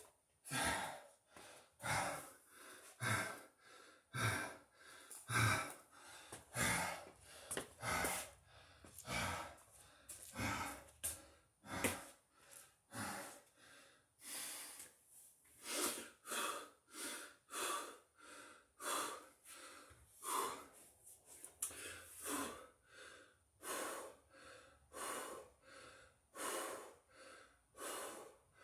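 A man breathing hard and fast, catching his breath after a set of six-count burpees, with about one loud breath a second.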